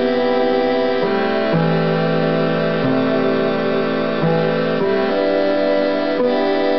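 Lowrey GX-2 home organ playing a melody with its "block" harmony setting, which fills each melody note out into a full chord. The held chords change about once a second.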